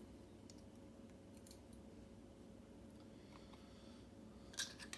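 Near silence with a faint steady hum, broken by a few faint metallic clicks of small lock pins and parts being handled, the two sharpest near the end.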